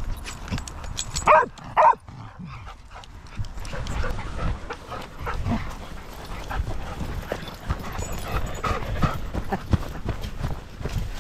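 A dog barks twice, about half a second apart, a little over a second in; after that come irregular soft thuds of footsteps on grass.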